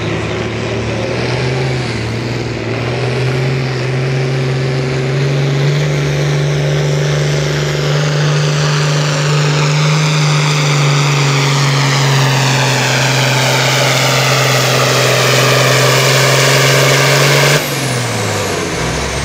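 Turbocharged diesel pulling tractor at full throttle under load, its engine note climbing early and then holding steady with a high whine over it. Near the end the throttle is cut abruptly and the engine drops off, leaving a high whine falling away as the turbo spools down.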